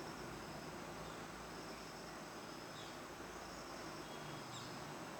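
Faint steady hiss with a thin, high-pitched steady drone running through it.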